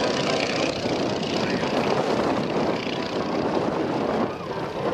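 Stearman PT-17 biplane's radial engine and propeller running at power as the plane flies past low, a steady drone that dips briefly about four seconds in.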